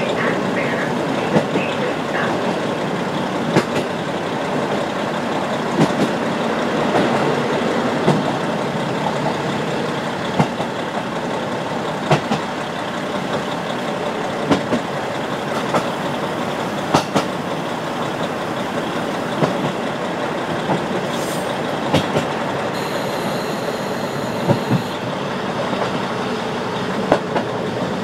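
KiHa 40 diesel railcar running on jointed track, heard through an open window: a steady rumble of wheels and engine, with a wheel clack over a rail joint about every two seconds.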